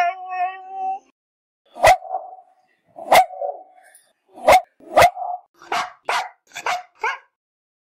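Dog barking: about nine short, sharp barks, spaced out at first and coming quicker near the end, after the tail of a long held howl that stops about a second in.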